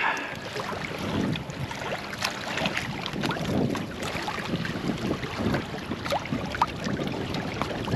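Sea water lapping against the side of a small fishing boat, with wind on the microphone; a steady wash of noise with small ticks and splashes through it.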